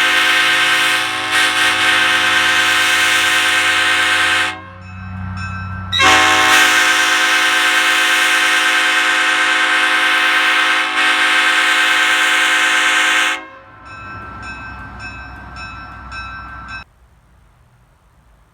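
Nathan Airchime Old Cast P5 five-bell sand-cast train horn sounding its chord in two long blasts. The first lasts about four and a half seconds; the second follows after a short break and lasts about seven seconds before cutting off sharply.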